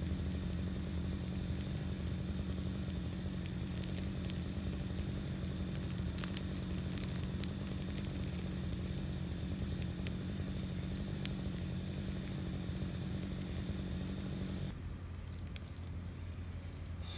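Burning brush pile crackling and popping in scattered sharp snaps, over a steady low hum that cuts off near the end.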